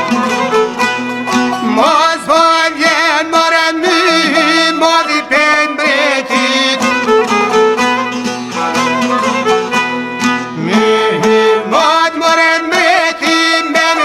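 Music: an Albanian folk song recording with a fiddle carrying a wavering melody over sustained low accompanying notes.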